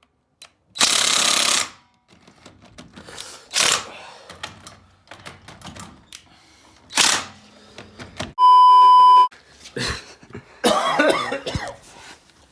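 A loud, steady electronic beep about a second long, about two-thirds of the way in, with several short rushes of noise before it and a busy clatter near the end.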